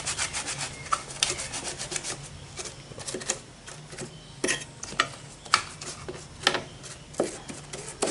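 Brush scrubbing a wet, detergent-washed TV circuit board in short strokes at an uneven pace, scouring off oil and rust corrosion.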